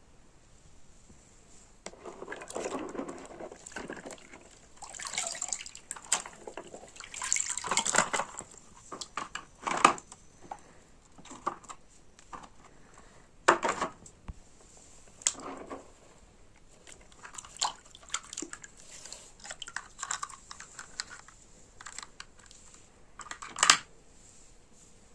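Toy vehicles being washed in water: irregular splashing and sloshing with sharp clicks and knocks of the toys being handled.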